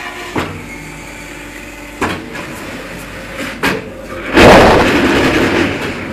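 A 4-15 concrete block-making machine running: a steady machine hum with a few sharp knocks. About four seconds in comes a loud, noisy burst that lasts over a second.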